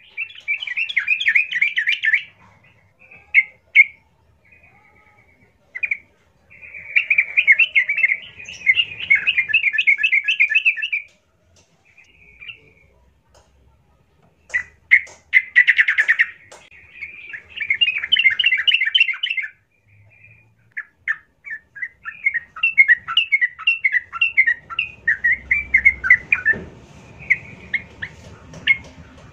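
Yellow-vented bulbul singing, phrases of quick high notes a few seconds long, broken by short pauses and single calls.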